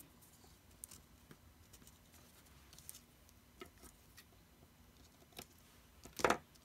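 Faint handling sounds of copper foil tape and its peeled backing strip, with small scissors snipping the tape. Scattered light clicks, and one sharper, louder click near the end.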